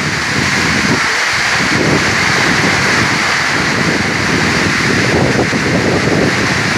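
Heavy rain pouring steadily, with strong gusts of wind buffeting the microphone as a rough, uneven rumble under the hiss of the rain.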